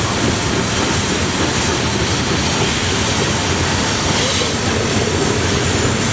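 Loaded coal cars of a long freight train rolling steadily past, a continuous rumble and clatter of steel wheels on rail.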